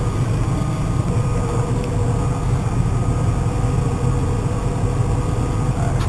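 Case IH Magnum 305 tractor engine running steadily, heard from inside the cab: an even low drone with a faint steady whine above it.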